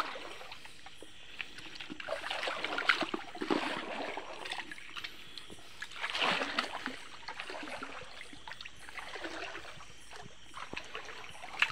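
Shallow water splashing and sloshing in irregular bursts as someone wades through it.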